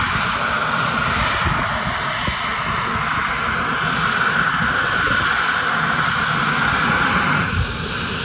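Medical helicopter running on the ground: a steady high turbine whine over the low flutter of the turning rotor. Near the end the whine drops away and the sound gets a little quieter.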